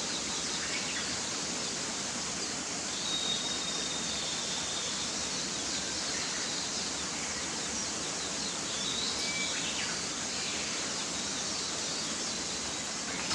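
A mountain stream rushing steadily, with a few faint bird calls over it: a thin high whistle held for about a second a few seconds in, and a couple of short chirps later on.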